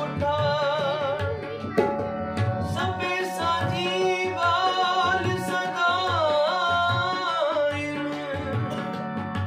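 Shabad kirtan: a man singing a Sikh devotional hymn in a wavering, ornamented line over his own harmonium's sustained chords. A tabla keeps a steady beat under him.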